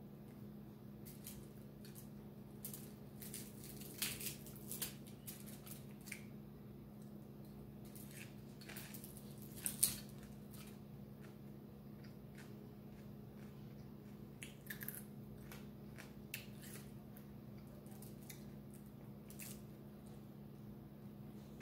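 Hand-eating sounds: crackles and clicks as fried fish is pulled apart with the fingers and food is picked off a foil-lined tray, with chewing. The sharpest crackle comes about ten seconds in. A steady low hum runs underneath.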